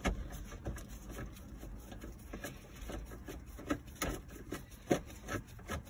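Irregular clicks and light knocks of a socket tool turning a 7 mm bolt out of the plastic dash panel, with the sharpest knocks about four and five seconds in.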